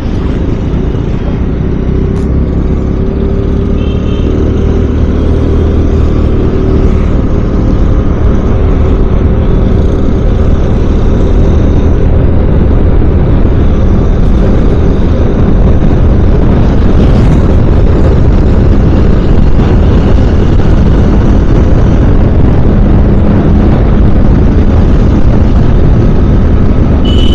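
Motorcycle riding heard from a helmet-mounted camera: loud, steady wind rush on the microphone over the bike's engine. It swells over the first few seconds as the bike picks up speed, then holds steady.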